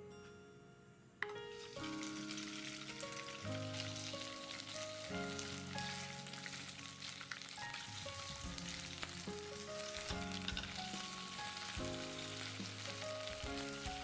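Sliced pork loin sizzling in hot oil in a nonstick frying pan, starting suddenly about a second in as the meat hits the pan, then crackling steadily while it is stir-fried with chopsticks until whitish. Background music plays underneath.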